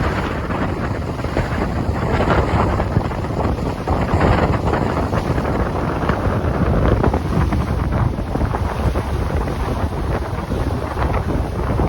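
Wind buffeting the microphone on the deck of a moving ferry, over the steady rush of the boat's engine and the water along the hull.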